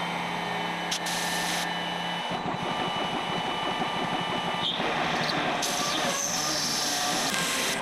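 Trim router on a DIY CNC machine running a quarter-inch end mill through aluminium plate: a steady spindle whine mixed with cutting noise, with a pitch that rises and falls near the end. From about five seconds in, the hiss of a compressed-air blow gun cooling the cut joins it.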